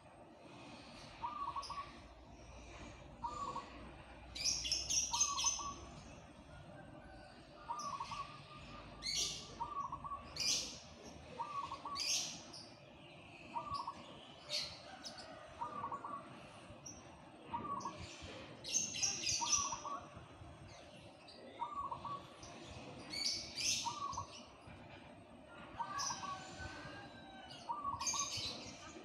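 A caged zebra dove (perkutut) cooing a short low call again and again, about once every second and a half, with other small birds chirping in louder, higher bursts over it.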